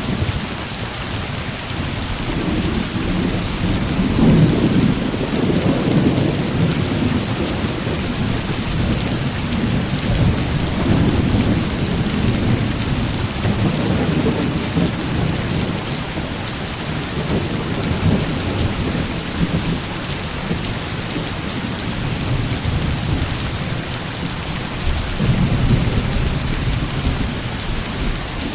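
Heavy rain falling steadily, with thunder rumbling low underneath, swelling a few times.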